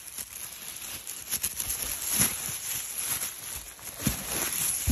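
Plastic shopping bag rustling and crinkling as clothes are pulled out of it, with a couple of bumps near the end.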